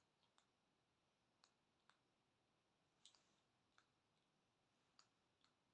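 Near silence: faint room tone with about eight brief, faint clicks at irregular intervals.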